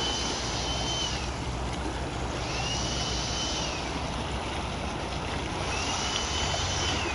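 Steady distant rush and rumble of a Boeing 777-300ER's GE90 jet engines as it climbs away, mixed with water lapping. A high whistling tone that rises, holds and falls repeats about every three seconds.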